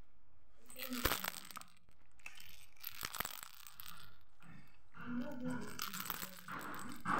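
Plastic toys knocking and rattling as a toddler handles them, with sharp knocks about a second in and around three seconds in.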